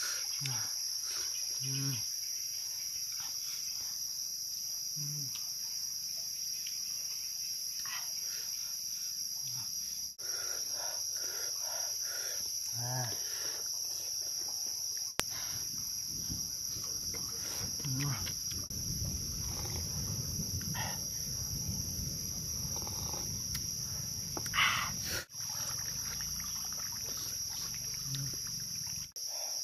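Insects buzzing steadily in a high-pitched, unbroken drone. Short soft clicks and brief low murmurs are scattered over it.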